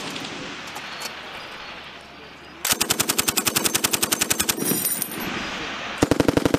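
M240B medium machine gun firing in automatic bursts: a burst of about twenty rounds at roughly ten shots a second a little under three seconds in, then a second rapid burst starting near the end.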